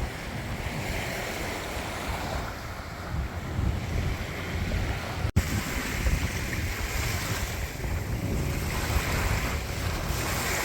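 Surf washing on a beach, with wind buffeting the microphone in gusts. A brief break in the sound about halfway through.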